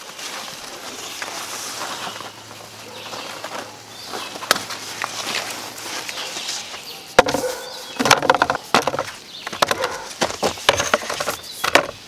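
Rustling of large squash leaves and vines as a butternut squash is pulled off by hand, with scattered clicks and snaps; the handling noise grows louder and busier from about seven seconds in.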